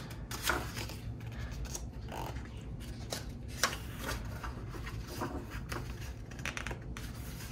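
Photobook pages being turned by hand: soft paper rustling with a few short, sharp flicks as each page is lifted and laid over.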